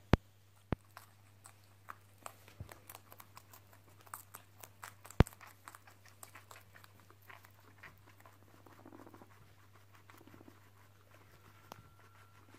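Guinea pigs chewing a green bean: a rapid run of small crisp crunches and clicks, thickest in the first half, with a few sharper, louder snaps.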